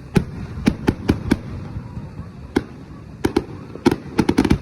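Fireworks exploding overhead in a string of sharp bangs at irregular intervals, with a quick run of bangs in the last second.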